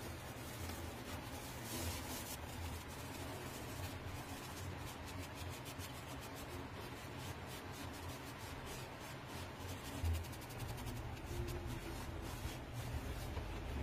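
An abrasive pad rubbed against a turned wooden vase spinning on a wood lathe, a steady scratchy hiss over the lathe's low motor hum. A brief low bump about two-thirds of the way through.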